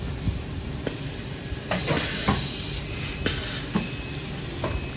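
Pneumatic coffee-bag valve applicator cycling: sharp clicks and knocks from the press, with a burst of compressed-air hiss about two seconds in lasting about a second, over a steady low machine hum. Paper-foil bag rustles as it is handled.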